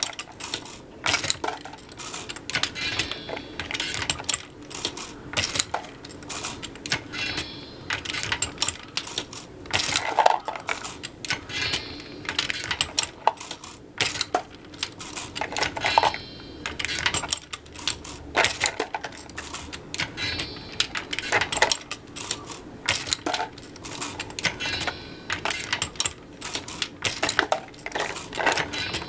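Lee Load-Master progressive reloading press being cycled by hand. Repeated metallic clanks and clicks come from the ram stroke and the shellplate indexing, with brass cases clinking, in bursts about every two seconds.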